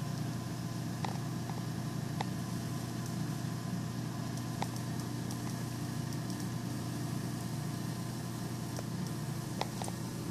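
Steady low electrical hum from a homemade high-voltage rig, a ZVS-driven flyback transformer and the oscilloscope's filament transformer, powering an old RCA oscilloscope CRT. A few sharp ticks sound through it, about a second in, around two and four and a half seconds, and twice in quick succession near the end.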